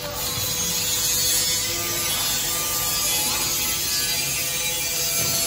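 Butter sizzling as it melts in the hot pool at the bottom of an electric induction cooking mixer's stainless-steel kettle: a steady, even hiss, with a faint steady tone underneath.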